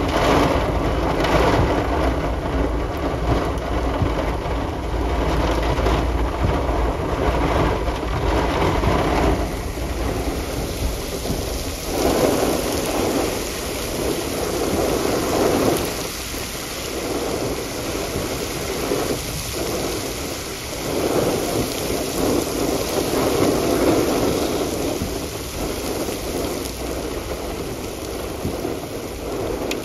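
Heavy rain pouring in a thunderstorm, with thunder rumbling; the noise swells and eases in waves lasting several seconds.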